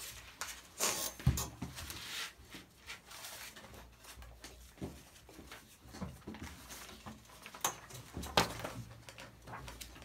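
Paper pages of a spiral-bound book being flipped and rustled by hand, in short irregular rustles, with a soft thump a little after a second in.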